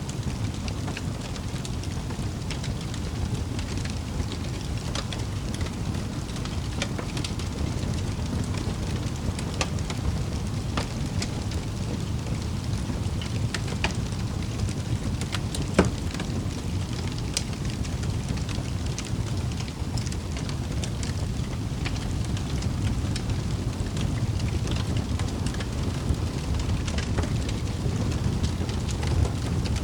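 Wood fire burning in a fireplace: a steady low rumble of flames with scattered crackles and small pops, one louder pop about halfway through.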